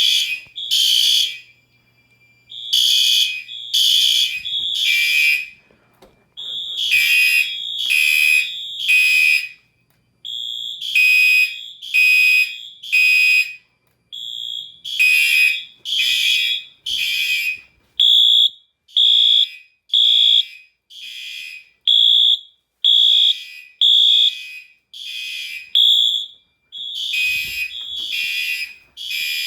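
Several electronic fire alarm horn strobes sounding the temporal-three evacuation pattern: groups of three loud high blasts about a second apart with a pause between groups. The horns are not synchronised, so their groups overlap and drift against each other. The fire alarm system is in full alarm, set off by a smoke detector.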